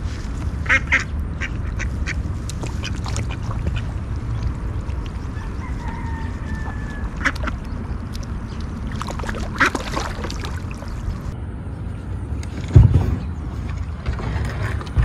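Domestic ducks quacking in short, scattered calls over a steady low rumble. A single loud low thump near the end.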